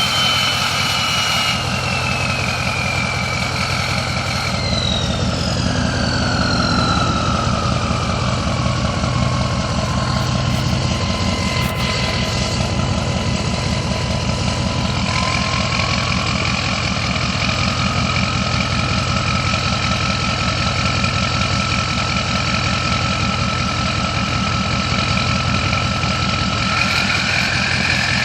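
2003 Ford 6.0 Powerstroke V8 turbodiesel idling, its variable-geometry turbo whistling as the vanes move. The whistle slides down in pitch over the first several seconds and holds low, then climbs a little about halfway through and again near the end.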